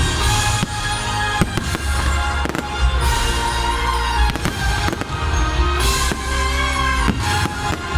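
Fireworks going off in a string of sharp bangs and crackles, over loud show music.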